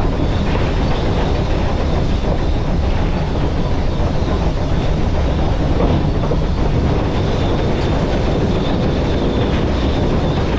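Polson 70 steam locomotive running along the track, heard from inside its cab: a loud, steady running noise of the engine and wheels on rail, with no letup.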